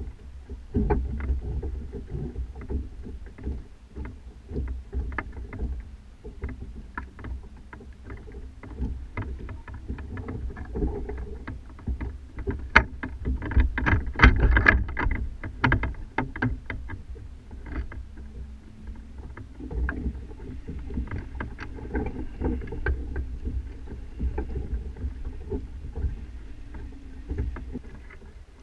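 Sailing kayak's mast and rigging heard through a GoPro mounted at the masthead: a steady low rumble with many irregular knocks and rattles, densest about halfway through.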